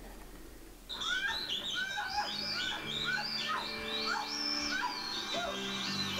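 Film sound effect of a bat attack: a rapid flurry of high-pitched bat squeaks that starts about a second in and keeps going, with low held tones underneath from about two seconds in.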